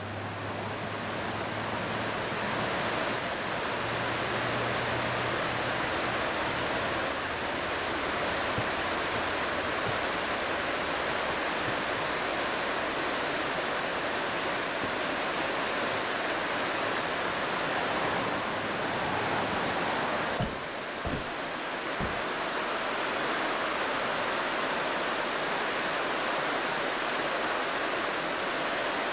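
Steady rushing of water: a fast river in flow and hot-spring runoff spilling down a mineral cone into it.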